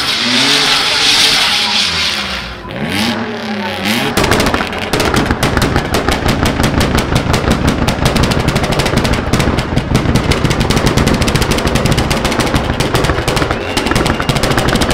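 V6-engined Mini drift car revving up and down with tyre squeal. About four seconds in, the sound switches abruptly to a fast, unbroken rattle of sharp pops and clatter that keeps going while the car circles.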